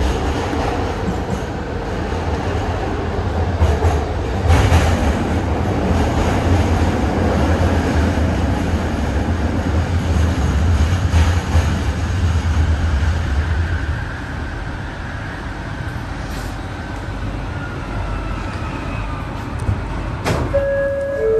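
ART200 metro train running with a loud low rumble and wheel noise. The rumble eases about two-thirds of the way through, and a faint whine falls in pitch over several seconds as the train slows. There is a sharp click near the end.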